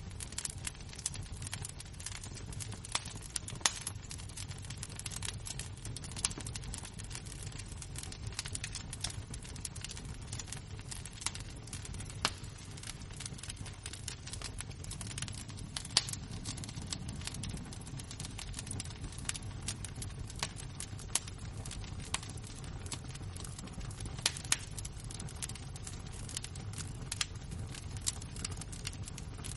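Embers and a wood fire burning, with a steady low rush and irregular crackles and snaps, a few of them louder pops.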